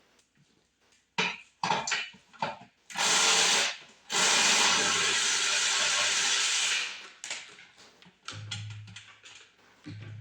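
Power drill driving screws, running in two bursts, a short one and then one of about three seconds, after a few handling clicks and knocks.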